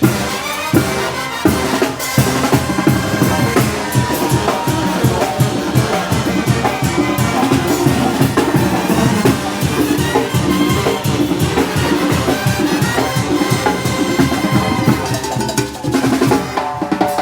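Oaxacan brass band (banda de viento) playing a muertero/calenda rhythm: brass and trumpets over a steady bass drum and snare beat.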